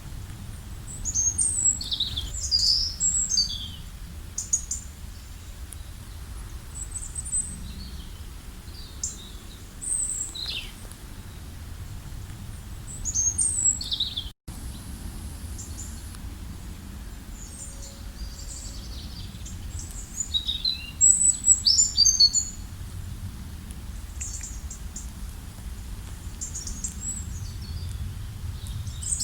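Songbirds singing and calling in bursts of high, quick chirps and steeply falling notes, over a steady low background rumble. The sound cuts out for an instant about halfway through.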